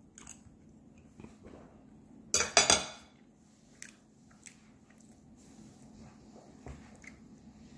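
A metal fork clattering against a plate, a short cluster of clinks about two and a half seconds in, with quiet chewing and small clicks around it.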